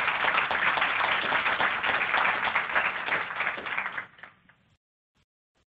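Audience applauding: many hands clapping densely, dying away about four seconds in.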